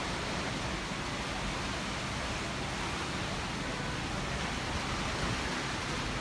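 Heavy rain and wind of a rainstorm, a steady even hiss without breaks.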